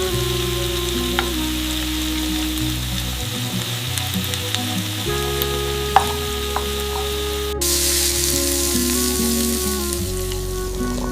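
A steady sizzling hiss over soft background music with held notes. The hiss gets louder and brighter about two-thirds of the way through, and a few light clicks sound along the way.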